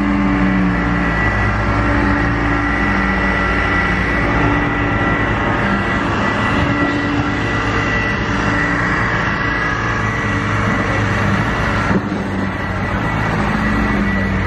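Lamborghini Sián's V12 engine running at idle, a steady deep rumble with small shifts in pitch.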